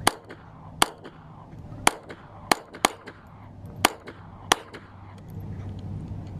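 Gunfire from a semi-automatic firearm: seven single shots fired at an uneven pace over about four and a half seconds.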